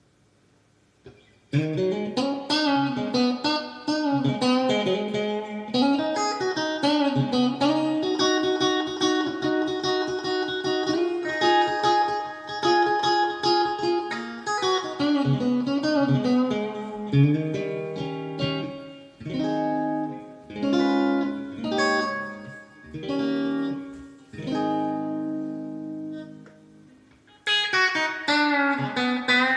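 Electric guitar, a Squier '70s Vintage Modified Stratocaster fitted with Fender Custom Shop Texas Special pickups, played through a Fender Mustang III v2 amp on its '57 Deluxe patch with spring reverb. It plays single-note lead lines with string bends and some chords, starting after about a second and a half of silence and pausing briefly near the end.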